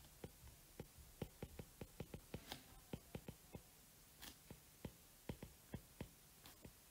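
Stylus tapping and ticking on a tablet's glass screen while handwriting: faint, irregular clicks, several a second.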